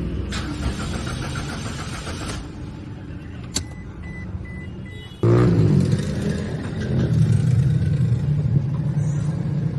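Toyota Fortuner engine being cranked by the starter in a quick rhythm for about two seconds, then a click and a few short beeps. About five seconds in the engine catches with a rev that falls away and settles into steady running.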